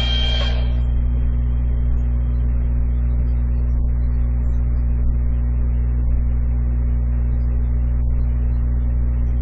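Steady, loud low hum of several stacked tones with a faint hiss above it, unchanging throughout; the last of a music track fades out in the first second.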